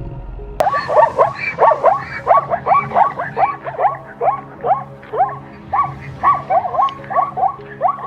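An animal calling in a fast, regular series of short rising calls, about three a second, starting abruptly about half a second in.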